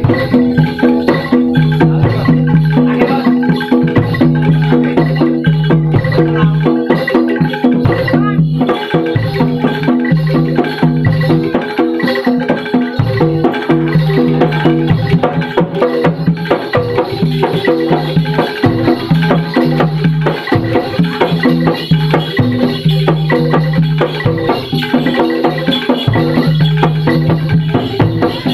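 Javanese gamelan music for a kuda lumping dance, playing continuously: tuned bronze metallophones ring over drumming and rattling percussion, with a recurring low note.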